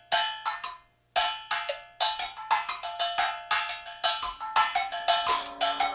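Musical interlude of struck percussion: a quick, uneven run of sharp strikes, each ringing with bell-like pitched notes. A low held tone comes in near the end.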